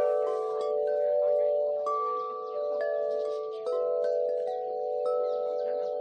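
Wind chimes ringing in the breeze: several pitches sound over one another, with new strikes coming at uneven moments about every second while the earlier notes ring on.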